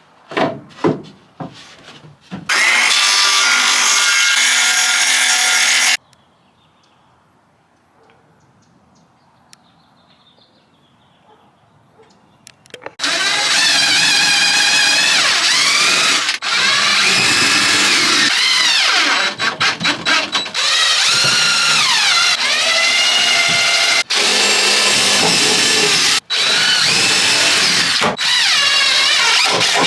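Power drill driving into wood: a few knocks, then the drill running hard for a few seconds, a pause, and long runs with the motor's pitch sagging and rising under load, stopping abruptly several times.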